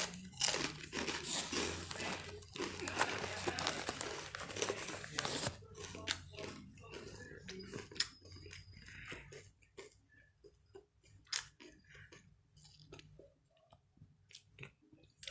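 Takis rolled tortilla chips being crunched and chewed close to the microphone, with crinkling. The sound is dense for about the first five seconds, then thins to scattered crunches.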